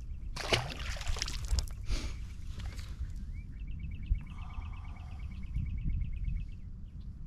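A largemouth bass splashes into the lake as it is released over the side of the boat. Then comes a fast run of high ticks or chirps, about nine a second, lasting roughly three seconds, over a low rumble of wind on the microphone.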